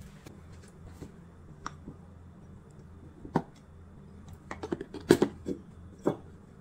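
Sharp plastic clicks and knocks as a mains plug is pushed into a power strip socket and the strip's rocker switch is clicked on. There is a single click, then a quick cluster of clicks a couple of seconds later, which is the loudest part, then one more click.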